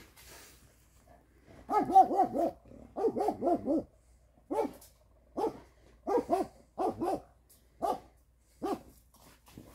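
Posavski gonič cross hound barking on wild boar, giving tongue at game. A rapid string of barks with a rising-and-falling pitch starts about two seconds in, then single and paired barks follow roughly once a second.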